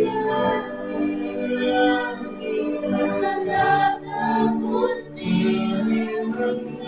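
A worship band performing a song: several singers singing together in held, sustained notes, backed by guitars.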